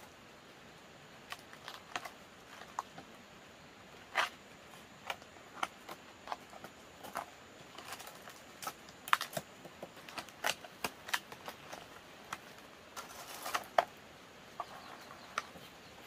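Irregular light clicks and taps, a few a second, with louder knocks about four seconds in, around nine seconds, and a cluster near the end.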